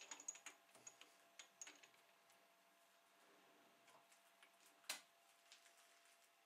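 A quick run of light clicks and taps in the first two seconds, then one sharper click about five seconds in, from hands setting up the workpiece and tooling on a lathe. A faint steady hum sits underneath.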